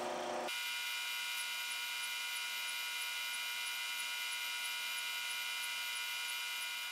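LH-15a induction heater switching on and heating steel stock in its copper coil: a steady electrical whine made of several tones at once, starting about half a second in and holding even.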